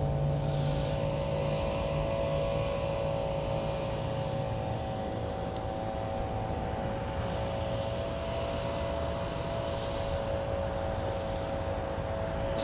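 Steady mechanical hum over a low rumble, unchanging throughout, with a few faint ticks scattered through it.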